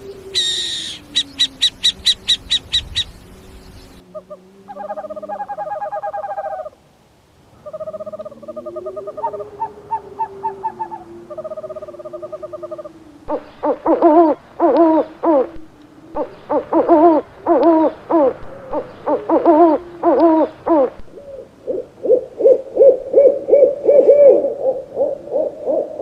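Owl calls from several recordings edited together: a rapid run of high, chirping notes over the first few seconds, then lower trilling calls, then loud hoots repeated two or three times a second, ending in a fast pulsing call.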